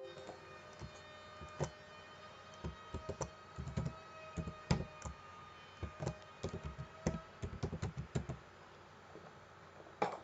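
Typing on a computer keyboard: an irregular run of quick key clicks, followed near the end by a single louder click of a mouse button.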